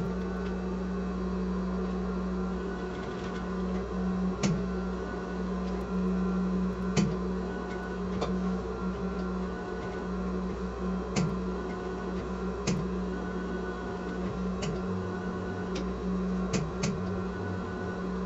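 Sewing machine stitching small fabric appliqué flowers down at their centres: a steady motor hum with occasional sharp clicks scattered through it.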